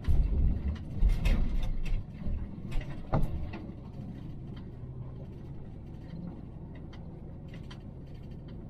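Vehicle rolling slowly along a gravel road, heard from inside the cab: a low tyre rumble with scattered clicks and crunches of gravel under the tyres. It is louder for the first two seconds, then settles into a quieter, steady rumble.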